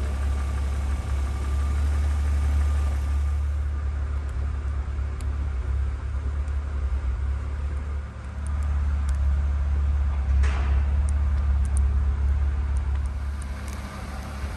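BMW Z3 2.8i's straight-six engine idling with a steady low rumble.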